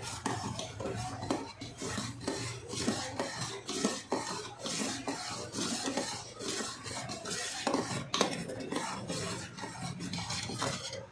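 A spoon stirring boiling grapes in a steel pot, scraping against the metal in quick, repeated strokes.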